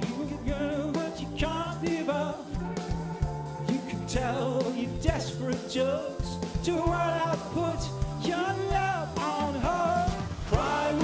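Live band playing a new wave song: a male lead singer sings with vibrato over keyboards, bass guitar and a steady drum beat.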